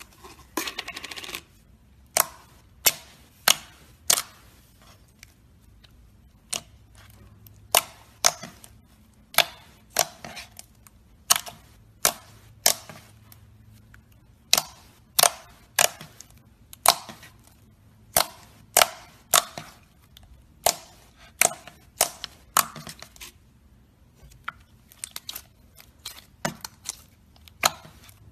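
Slime being pressed and poked, trapped air popping out in sharp, loud snaps about one or two a second, irregularly spaced, after a brief squishing rustle at the start.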